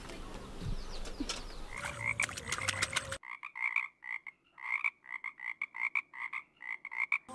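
Frogs croaking in a run of short, repeated calls, about three a second. The background noise under them drops away suddenly about three seconds in.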